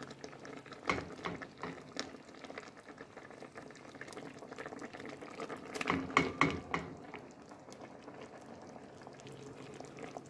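A pot of fish stew simmering, with scattered knocks and clatter as fish pieces and a utensil go into the pot, most of them about six seconds in.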